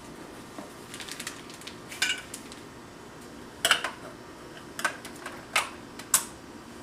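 Hard plastic toy building blocks and farm pieces clacking and knocking together as they are handled: a light rattle about a second in, then about five sharp separate clacks.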